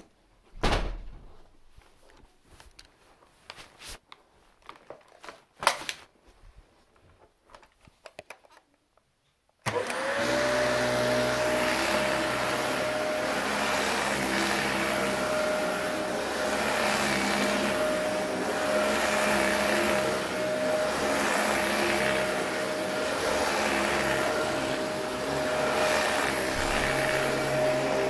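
A few faint clicks and knocks, then about ten seconds in a Dyson DC40 upright vacuum cleaner switches on: its motor whine rises quickly to a steady high tone and it runs steadily, being pushed over carpet.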